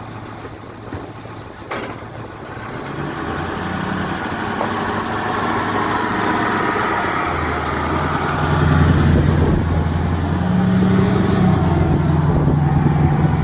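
An engine running with a steady low hum and a rushing noise, growing louder over the first eight seconds or so, then holding.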